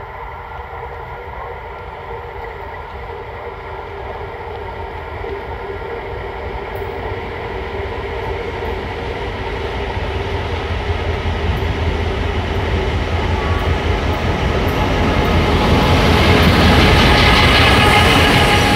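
Diesel locomotive hauling a passenger train as it approaches and passes close by. The steady engine note and running noise grow louder throughout, peaking as the locomotive draws alongside near the end.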